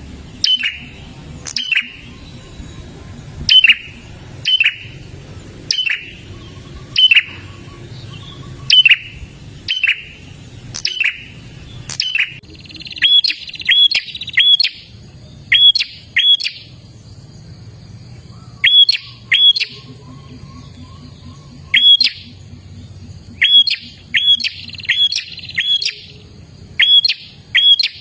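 Prinia (prenjak) giving loud, sharp single calls, each a short note that drops in pitch. They come about one a second, sometimes in quick runs of two to four, over a faint low hum.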